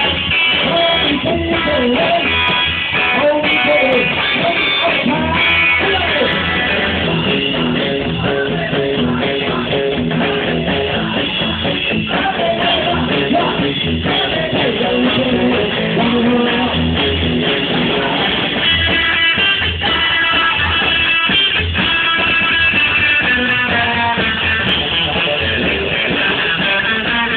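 Live rock'n'roll band playing loudly: electric guitar over an upright double bass and a drum kit, with a steady beat.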